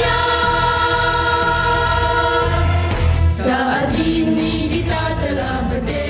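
Choir of female voices singing a long held chord over a steady instrumental bass, moving to a new held chord about three seconds in.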